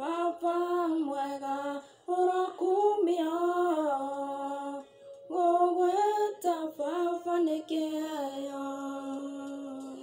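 A woman singing a slow Kikuyu gospel melody unaccompanied, in long held notes that glide between pitches, with two short breaks about two and five seconds in.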